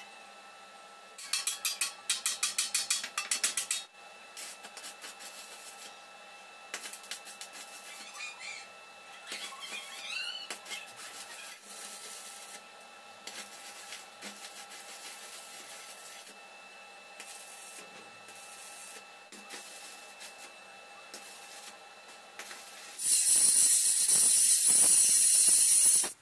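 Metal fabrication on a square-tube steel frame: a quick run of loud rapid strokes about a second in, then the faint irregular crackle of stick welding for most of the time. A loud steady hiss comes in near the end and cuts off suddenly.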